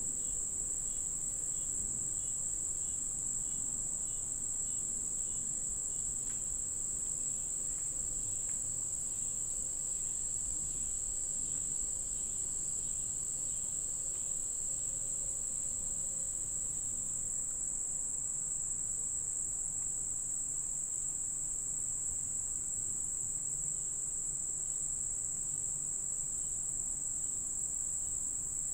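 Chorus of insects, typical of crickets: a continuous, unchanging high-pitched trill. A fainter, regularly pulsing call sounds under it for the first several seconds.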